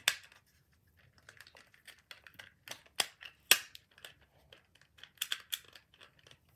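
Plastic parts of a toy wing pack being handled and fitted together: a series of sharp clicks with small scrapes and rattles between them. The loudest clicks come right at the start, about three seconds in and three and a half seconds in, with a quick cluster of clicks a little after five seconds.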